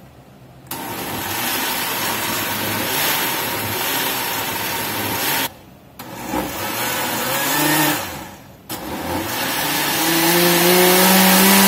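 Oster countertop blender puréeing a thick habanero-mango pepper sauce, run in three bursts of a few seconds with brief stops between. Its motor whine climbs in pitch as it picks up speed in the later runs.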